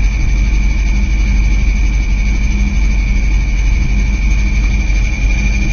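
1983 Camaro engine idling with the clutch pedal released, and a steady high-pitched squeal from the clutch bearing over the low engine hum. The clutch was freshly replaced and the squeal remains; the owner takes it for the release (throwout) bearing, while the title blames the pilot bearing.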